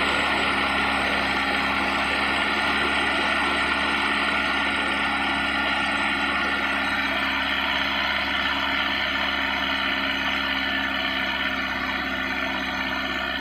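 Mitsubishi L300 diesel engine idling steadily, with an even hum that does not change.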